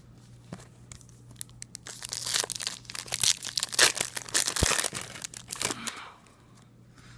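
Trading-card pack wrapper being torn open and crinkled by hand, a dense run of crackling for about four seconds that then dies away.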